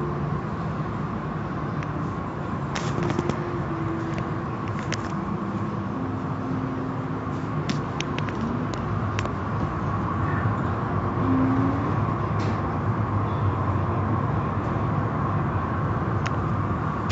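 Automatic car wash running: soft-cloth brush strips slapping and sweeping across a wet vehicle amid spraying water. It makes a steady rushing with scattered sharp slaps.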